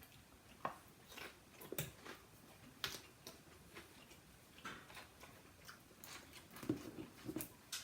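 Faint eating sounds: chewing, with scattered small clicks and taps of food and utensils at the table.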